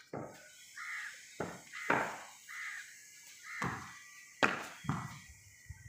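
Cricket ball knocking sharply off a bat and bouncing on a concrete rooftop, about half a dozen knocks, with a few short bird calls between them.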